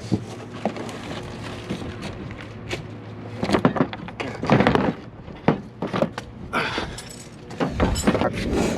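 Scattered clicks, knocks and rattles of car parts and tools being handled, busiest in the middle of the stretch.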